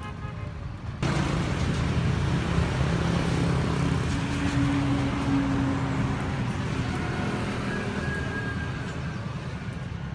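Motor vehicle engine running close by over road traffic noise: a steady low hum under an even rumble that cuts in suddenly about a second in and slowly eases off toward the end.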